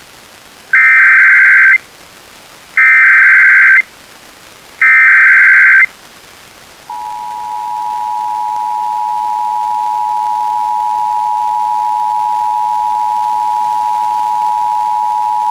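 Emergency Alert System header: three one-second bursts of SAME digital data tones about a second apart, followed about seven seconds in by the EAS two-tone attention signal (853 and 960 Hz sounded together) holding steady. This sequence opens a broadcast alert, here a required monthly test relayed by an FM station.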